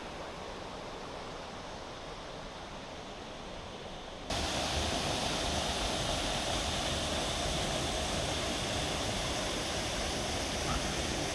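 Steady rush of flowing river water and a waterfall, jumping suddenly louder and fuller about four seconds in.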